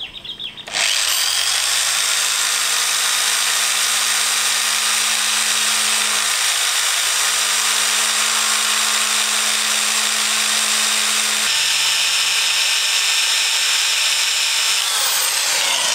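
Electric drill with a small bit running steadily as it bores into a broken motorcycle brake-disc bolt, the bit struggling to bite into the bolt. The drill starts about a second in, its sound shifts about two-thirds of the way through, and it spins down near the end.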